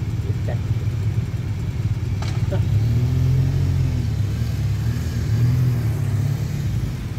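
Police motorcycle engines running, one revving and pulling away; its engine note rises and falls twice in the middle.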